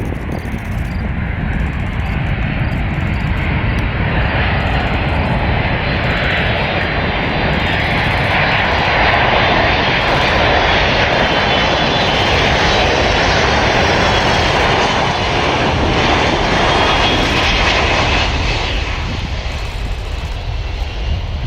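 An airplane's engines pass by, a broad rushing noise that swells, holds for several seconds and fades near the end, with a faint high whine gliding in pitch. A low rumble runs underneath.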